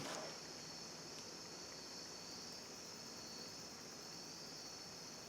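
Faint, steady high-pitched chirring of crickets over low room noise.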